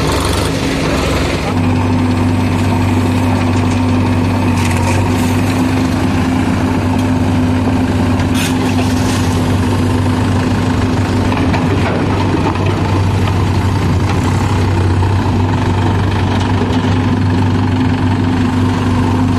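Diesel engines of farm tractors and a backhoe loader running steadily, a low drone that shifts once about one and a half seconds in.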